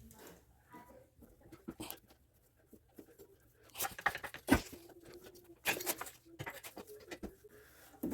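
Scattered clinks and knocks of tools and metal parts being handled during work on a car's front axle and suspension, with the sharpest knock about halfway through.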